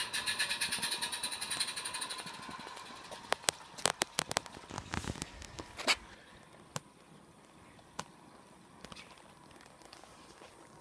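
Model railway coach wheels clicking rapidly and evenly over the rail joints, with a metallic ringing, as the train crosses a metal girder bridge; the clatter fades after about two seconds. A handful of sharp, separate clicks follow a second or so later.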